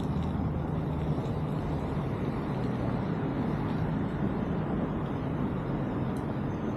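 Steady low rumble of wind and tyre noise while riding a mountain bike, picked up by a chest-mounted camera, with a faint steady hum underneath.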